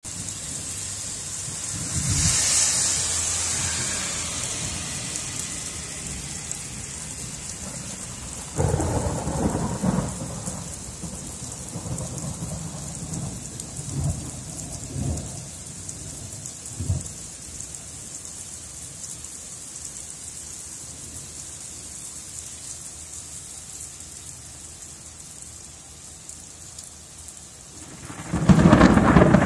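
Steady rain falling on pavement, with thunder rumbling. A rumble comes about a third of the way in, followed by a few smaller rumbles, and a loud, sudden thunderclap breaks near the end.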